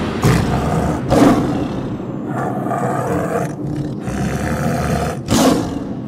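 A big cat's roars and growls, a tiger sound effect: a run of rough calls, with louder roars about a second in and near the end.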